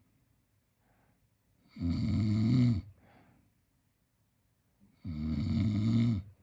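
A 10-month-old baby snoring in sleep: two loud, pitched snores about a second long each, the first about two seconds in and the second near the end, with quiet breathing between.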